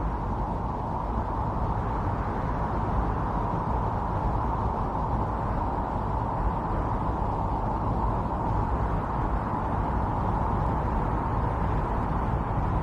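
Strong winter storm wind blowing steadily: a deep rushing with a whistling note running through it.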